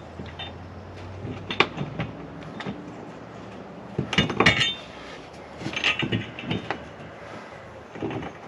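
Metal clinking and clattering of tools and hardware being handled, in scattered knocks with two busier clusters about four and six seconds in.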